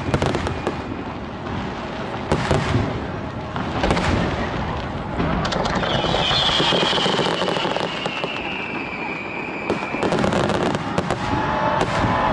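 Fireworks bursting and crackling one after another in a display, with a high whistle that slowly falls in pitch for a few seconds midway.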